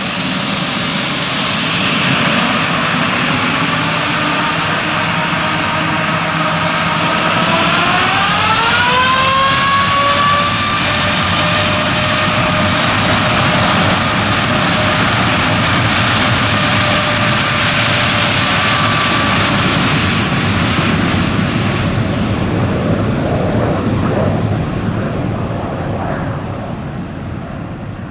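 Boeing 787-8 Dreamliner's twin GE GEnx-1B turbofans on the takeoff roll, spooling up to takeoff thrust: a whining tone rises steeply about eight seconds in and then holds over a loud, steady jet rumble, which fades in the last several seconds as the aircraft moves away.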